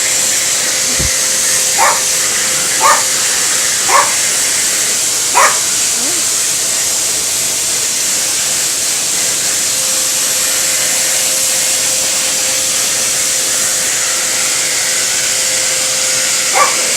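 Vacuum cleaner running steadily, with a dog barking at it: four short barks in the first six seconds, then one more near the end.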